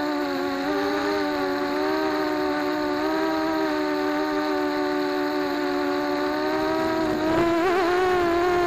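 Racing quadcopter's electric motors and propellers whining steadily, heard up close from the onboard camera, the pitch wavering a little with throttle and warbling briefly near the end.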